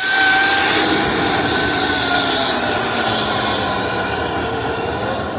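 Dryer vent cleaning equipment running loudly: a steady rush of air with a motor whine that eases slightly in level in the second half.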